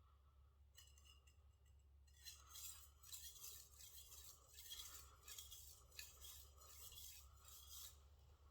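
Faint, repeated back-and-forth strokes of a Shigeki Tanaka gyuto's steel blade rubbing across a wet finishing whetstone with a slurry on it. The strokes start about a second in and stop near the end.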